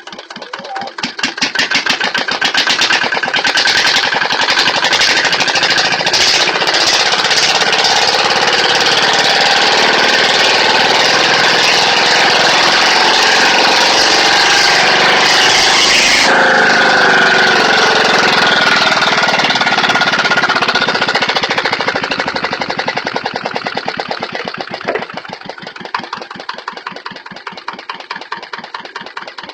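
Jiangdong single-cylinder diesel engine revved up to full throttle over the first couple of seconds, held there with a fast even knocking beat, then throttled back to idle near the end.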